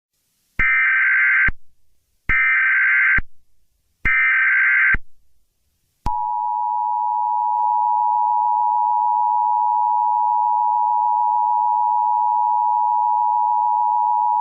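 Emergency Alert System tones: three short bursts of digital header data about a second and a half apart, then the steady two-tone attention signal held for about eight seconds. This is the sequence that announces an emergency message is about to be read.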